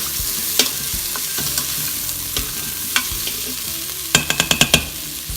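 Chickpeas and onions sizzling in an Instant Pot's inner pot on sauté mode while being stirred, with scrapes and knocks of the utensil against the pot. About four seconds in comes a quick run of about eight sharp taps.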